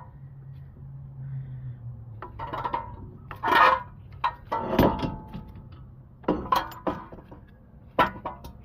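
Metal clinks and knocks from handling a brake caliper and a screw-type caliper piston tool while pushing the piston back into its bore: a run of separate clattering knocks, loudest about three and a half and five seconds in.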